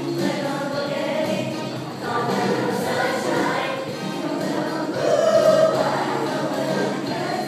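A large group of children singing together as a choir, swelling a little louder about five seconds in.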